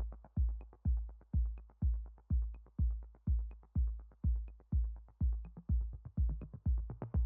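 Electronic dance music: a steady drum-machine kick about twice a second, with light hi-hat ticks between the beats.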